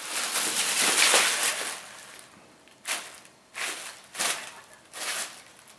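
Tissue paper rustling and crinkling as a Siberian cat pounces on and tussles with it. A long burst of rustling fills the first two seconds, then four shorter rustles follow.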